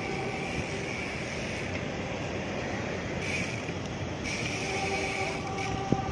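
Motorcycle engine running steadily at low speed, a constant hum with a faint steady whine.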